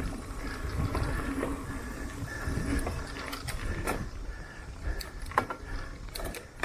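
Mountain bike rolling slowly over a rough dirt trail: a steady low rumble with several sharp rattling knocks from the bike in the second half.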